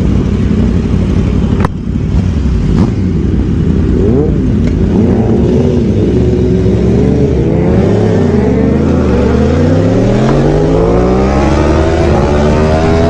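Sport motorcycle engines running hard and revving up and down. About eight seconds in the pitch drops, then climbs steadily as the bike accelerates. A single sharp click comes just under two seconds in.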